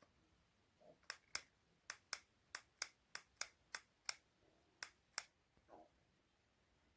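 A run of about a dozen sharp, short clicks at an uneven pace, lasting some four seconds, followed by a soft rustle.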